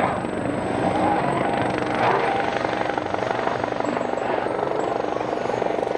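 Helicopter sound: a steady, fast chopping whir of rotor and engine that starts abruptly.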